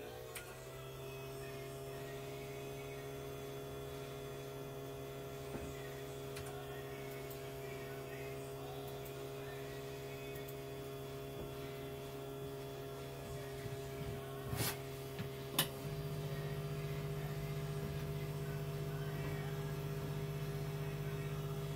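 A steady electrical hum made of several pitches, sliding up to its pitch at the start as if a device has just switched on. Two sharp clicks come about a second apart near three-quarters of the way through, and the hum then gets louder for the rest.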